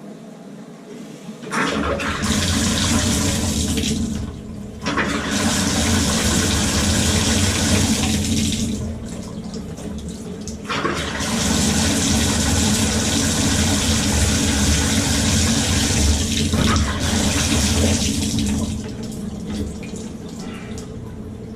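Water running hard from a Moen tub and shower valve opened to test it after cartridge work. It starts about a second and a half in, cuts out briefly twice, and eases off near the end.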